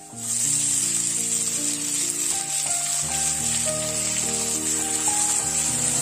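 Chopped tomatoes hitting hot oil and fried onions in a wok, a loud sizzle that starts suddenly just after the start and holds steady as they are stirred. Background music plays underneath.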